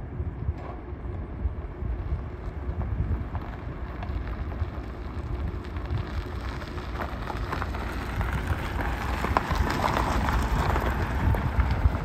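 Tyres of a small electric mini pickup crunching over gravel as it drives up and past, the crackle growing louder toward the end as it comes close. Wind rumbles on the microphone throughout.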